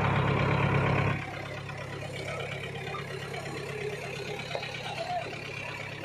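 Truck engine idling steadily as a low hum, louder for about the first second and then settling at a lower level.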